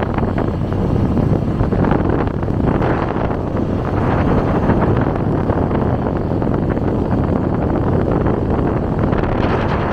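Wind buffeting the microphone of a camera carried on a moving motorbike: a steady, loud rush, with the bike's engine and road noise underneath.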